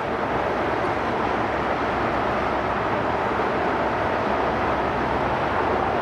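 Steady roar of freeway traffic, an even rush of noise with no breaks or distinct events.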